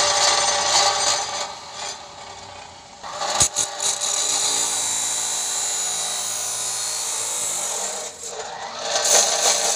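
Abrasive cut-off wheel of a homemade chop saw, driven by a separate electric motor, grinding through metal with a steady, rasping hiss. The grinding eases off twice, and there is a single sharp knock about three and a half seconds in.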